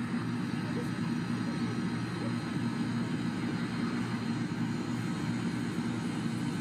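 A steady low mechanical drone, like a motor or engine heard outdoors, running evenly throughout.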